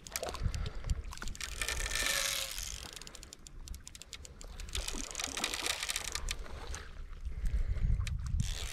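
Fishing reel clicking while a hooked steelhead is fought on a bent rod, with bouts of hiss and a low wind rumble on the microphone near the end.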